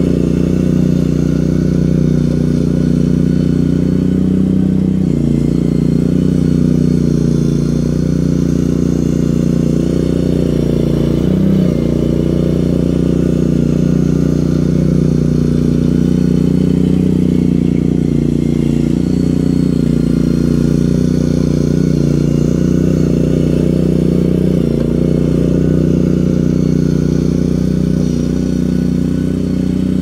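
Boxer 320 mini skid steer's engine running steadily as the machine works the dirt, with a few brief dips in its note.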